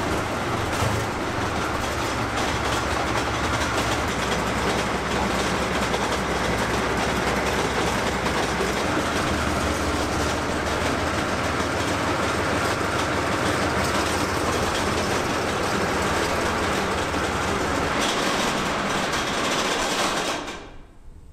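Type 69 tank's 38.8-litre V12 diesel engine running steadily at idle, still cold and not up to temperature. It cuts off abruptly shortly before the end.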